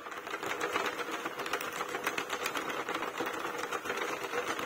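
Plastic circular knitting machine turned through a round of stitches: a fast, continuous clatter of its needles clicking up and down, over a steady whirr.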